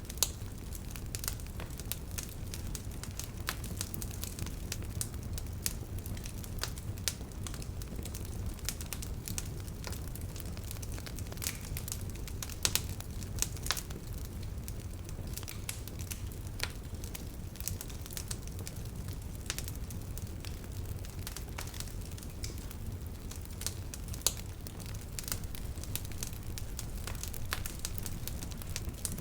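Bonfire of burning wood crackling, with frequent irregular sharp pops over a low steady rumble.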